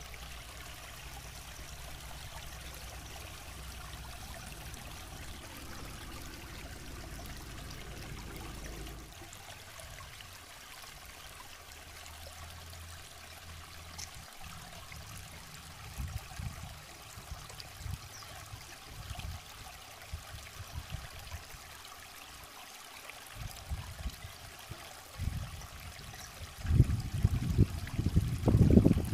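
River water flowing steadily over rocks, an even rushing hiss. Scattered low thuds come in over the second half, and louder low rumbling bursts near the end.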